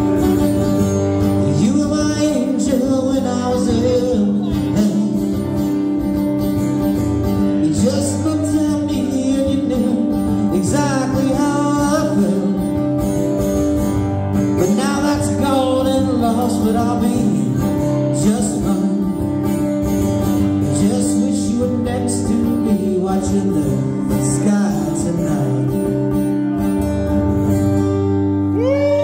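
Live acoustic guitar music: two guitars strummed together while a man sings.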